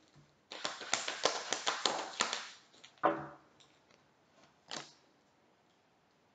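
A deck of tarot cards being shuffled by hand: a quick run of card flicks and taps lasting about two seconds. It is followed by a short sound at about three seconds and a single tap near five seconds.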